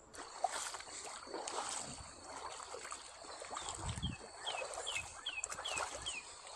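Shallow stream water gurgling and splashing close to the microphone, with many small splashes. From about halfway in, a bird repeats a short falling chirp about twice a second.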